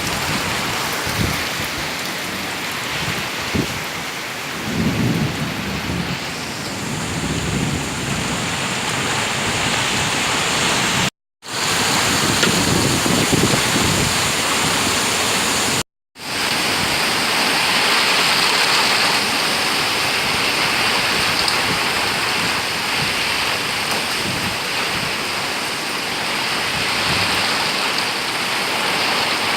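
Heavy rain and wind of a summer storm, a steady rushing hiss, with low rumbles in the first half. The sound cuts out to silence briefly twice, about 11 and 16 seconds in.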